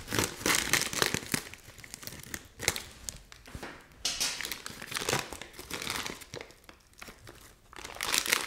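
Wrapping crinkling and rustling in irregular bursts as it is handled, while Critter Clay is got out to fill a mount's eye sockets.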